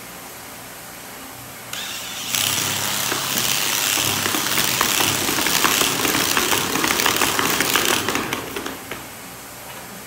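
DeWalt drill at its third speed driving a rubber wheel on a concrete floor, spinning a rider on a wooden board: the drill motor and the wheel grinding and chattering on the concrete, loud and rough. It starts about two seconds in and dies away near nine seconds.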